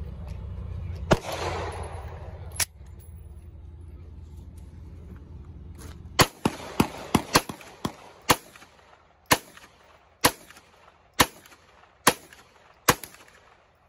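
About a dozen gunshots from a pistol in a Roni-style carbine conversion chassis. A quick string of five or six comes first, then single shots about a second apart. A sharp clack about a second in comes before the shooting.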